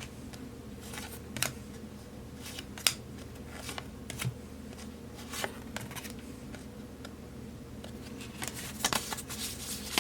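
Hockey trading cards being handled and flipped through from a freshly opened pack: scattered light clicks and snaps of card stock at irregular moments, over a low steady hum.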